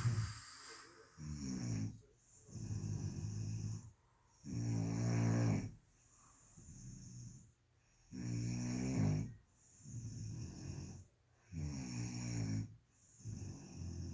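A person snoring in sleep: a steady run of snores, one on each breath about every one and a half to two seconds, some much louder than others. The recorder takes the sleeper's breathing for sleep apnea, stopping and then starting again.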